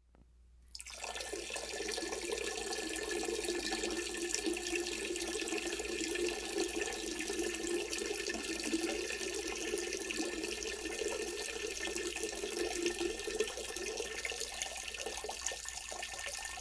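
Steady splashing, trickling noise of running water, starting about a second in and continuing evenly.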